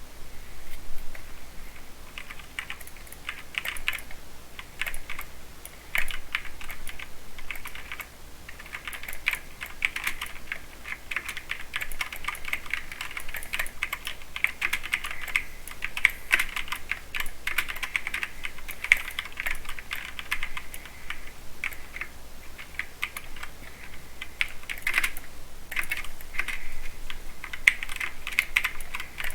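Mechanical keyboard with Cherry MX Silver speed switches, linear key switches, being typed on fast and continuously, a dense run of clicks with only short pauses.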